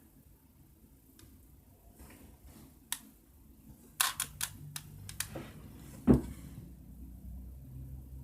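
Plastic Rubik's cube layers being turned by hand, giving sharp clacks: one alone, then a quick run of several. A louder, duller thump follows about six seconds in.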